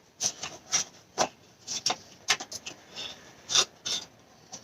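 Oil filter parts being handled by hand: a quick string of irregular short rubbing and tapping sounds, about a dozen, with one louder scrape a little past halfway.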